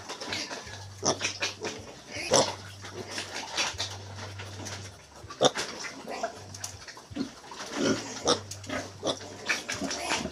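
Restless piglets calling in short, irregular grunts and squeals.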